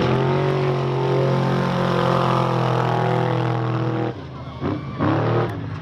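Unlimited-class off-road trophy truck's engine revving up hard as it launches from the line, holding a high steady note for about four seconds. The note then drops away suddenly and comes back in a couple of quick rising revs near the end.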